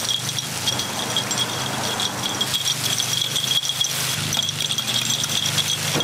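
Metal takoyaki picks clicking rapidly against the wells of a takoyaki griddle as the balls are turned, over a steady sizzle of batter frying in margarine. A low steady hum runs underneath.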